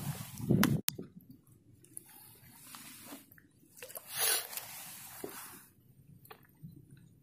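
Faint wet squishing and rustling of hands handling moss bait and a tegek fishing pole, with one sharp click just under a second in and a louder hissing rush of noise about four seconds in as the pole is swung out over the water.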